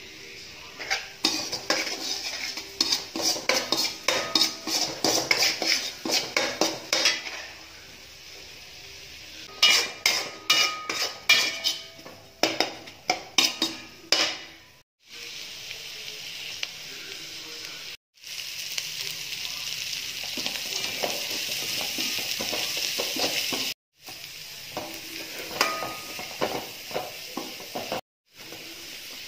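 A metal spoon scraping and clanking against a metal wok in quick strokes as onions and vegetables are stir-fried in oil, with stretches of steady sizzling in between.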